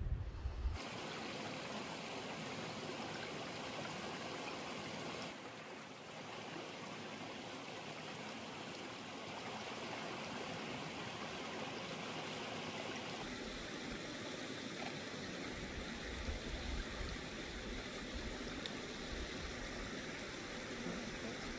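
A steady, even rushing noise with no distinct events, like running water, changing abruptly a few times along the way and picking up some low rumble in the second half.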